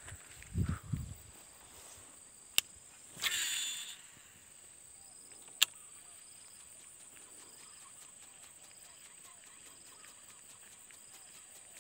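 Handling thumps, then a sharp click and a short whirring swish of about a second, typical of a casting reel's spool paying out line on a cast, followed by another single click. A steady high insect drone runs throughout.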